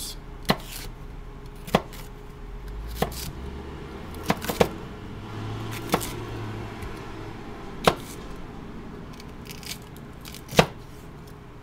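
Knife slicing a red bell pepper into thin strips, each cut ending in a sharp knock on the cutting board, about eight cuts at uneven intervals of one to two seconds.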